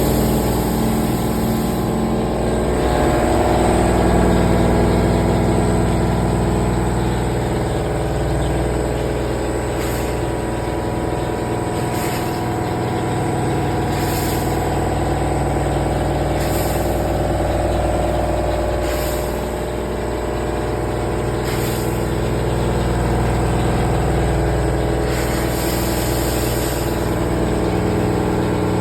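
CNC vertical machining centre running while milling a pipe mould: a steady machine hum with several held tones. From about ten seconds in, short hissing bursts come every two seconds or so.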